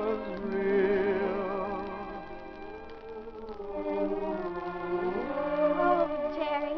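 A studio orchestra playing a slow ballad under a singer, with long held notes and vibrato. A phrase rises in pitch about five seconds in.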